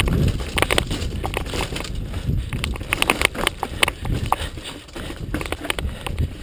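Bicycle rattling over a rough trail: irregular clacks and knocks over a continuous low rumble.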